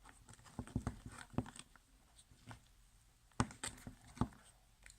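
Fresh homemade slime being handled in its container: a scattering of faint, short soft clicks and taps, bunched about a second in and again near the end.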